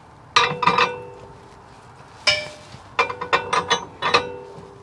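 Steel clevis shackle and its pin clinking and knocking against the tractor's steel frame as the shackle is fitted: sharp metallic clinks with a short ring, two about half a second in, one a little past the middle, then a quick run of them near the end.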